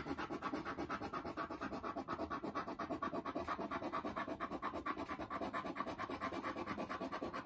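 A scratch-off lottery ticket's coating being rubbed off with a round coin-like disc, in rapid, even back-and-forth strokes.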